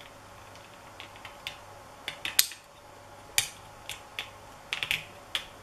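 3D-printed plastic watch strap being pushed into the watch case: a string of small, sharp plastic clicks and taps at irregular intervals, the loudest about two and a half and three and a half seconds in, with a quick cluster near the end.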